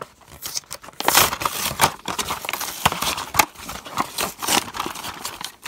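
A toy blister pack being torn open by hand: cardboard backing ripping and the plastic blister crinkling and crackling in an irregular run of rips and snaps.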